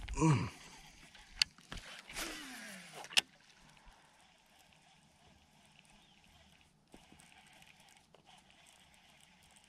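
A fishing reel on a cast: a whirr that falls steadily in pitch as the spool slows, ending in a sharp click about three seconds in. After that only a faint background hiss remains.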